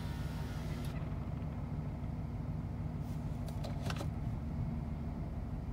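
2006 Lincoln Navigator's 5.4-litre three-valve V8 running and missing: a misfire the owner links to cam-timing codes P0021 and P0022. A few light clicks come about three to four seconds in.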